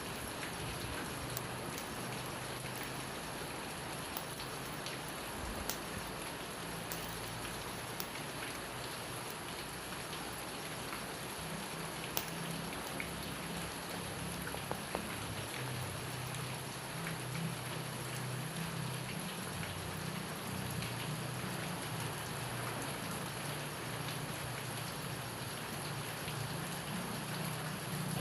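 Steady rain falling, with a few scattered sharp clicks and a low rumble underneath that grows stronger about halfway through.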